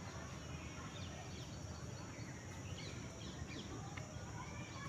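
Outdoor ambience: birds chirping in short calls over a steady high insect drone, with a low rumble of wind on the microphone underneath.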